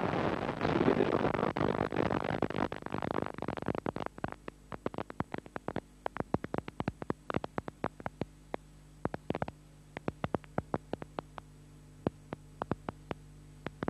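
Stadium crowd noise from a football match, loudest about a second in, which fades out about four seconds in. After that only a low steady hum remains, with irregular sharp crackling clicks.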